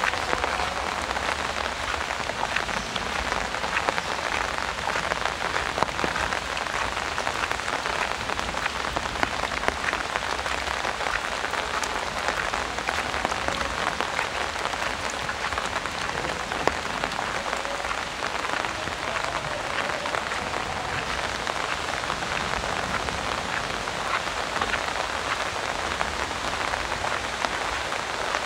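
Heavy rain falling steadily, with many small sharp taps of drops striking an umbrella held close overhead.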